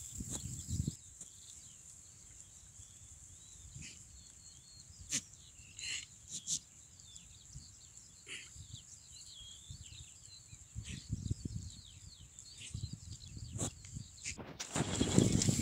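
Open-field ambience of small birds chirping, with a herd of goats bleating now and then and irregular low rumbles.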